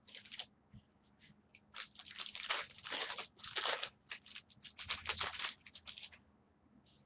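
A trading card pack's wrapper being torn open and crinkled: a dense, irregular crackling that starts about two seconds in and lasts about four seconds, after a few brief rustles.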